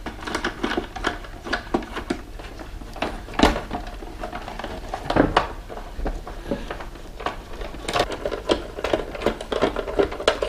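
Plastic toy cash register being taken apart by hand: a screwdriver working its screws, with many irregular clicks and rattles of the hollow plastic housing and two louder knocks, about three and a half and five seconds in.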